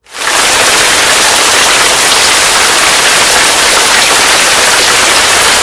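Loud, steady static hiss that fades in over the first fraction of a second and then holds without change.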